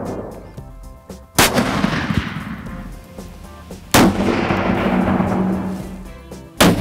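Three rifle shots about two and a half seconds apart, each followed by a long rolling echo that fades over a couple of seconds.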